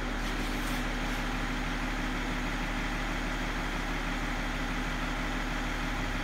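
BMW E39's M57D25 2.5-litre straight-six turbodiesel idling steadily, heard at the exhaust tailpipe.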